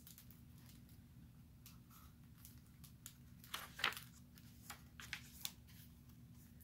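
A picture book's paper page being turned: a few short rustles and flicks about three and a half seconds in, and a couple of smaller ones a second or so later, over a faint steady hum.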